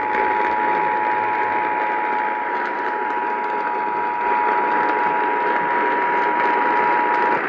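Emergency Alert System two-tone attention signal (853 Hz and 960 Hz together), a steady harsh dual tone received over AM radio with heavy static hiss beneath it, cutting off near the end as the relayed warning message is about to begin.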